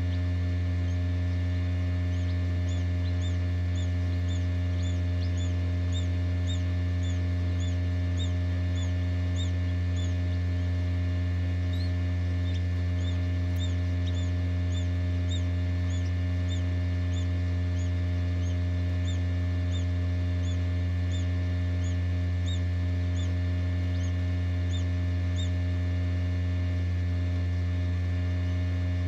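Newly hatched bobwhite quail chick peeping: short, high, rising-and-falling peeps about two a second, in two long runs with a brief pause near the middle. Under them runs the incubator's loud, steady low hum, the loudest sound throughout.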